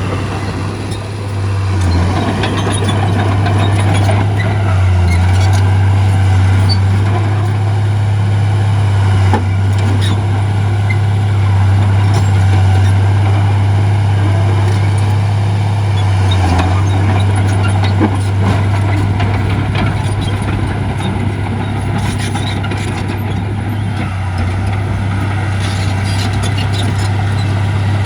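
Heavy diesel earthmoving machinery, a bulldozer working alongside dump trucks, running steadily under load with a deep, continuous engine drone. A few sharp clicks stand out over it.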